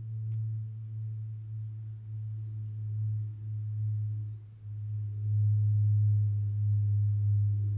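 A steady low-pitched hum that swells and fades in loudness, with a faint high hiss that drops out about one and a half seconds in and returns about half way through.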